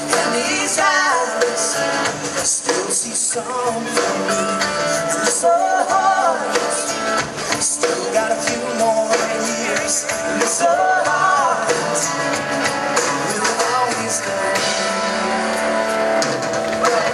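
Live rock band playing amplified: electric guitars, bass guitar and drum kit, with a singer's voice coming in at times.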